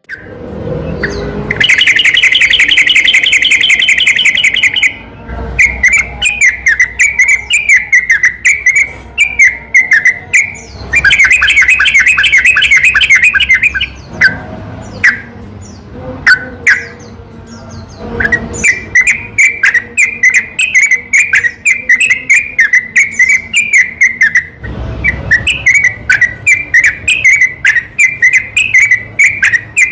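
Yellow-vented bulbul (trucukan) singing in a loud, rapid run of bubbly chirping phrases. The song is broken twice by long, very fast chattering trills, about two seconds in and again around eleven seconds.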